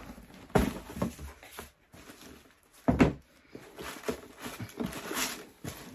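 Cardboard shoebox being handled and opened: two sharp knocks, about half a second in and about three seconds in, then soft rustling and patter.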